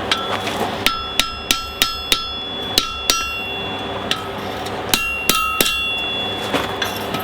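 Hand hammer striking a steel horseshoe on an anvil, about a dozen ringing blows in quick groups of two to four with short pauses between, as the horseshoe heart is trued up.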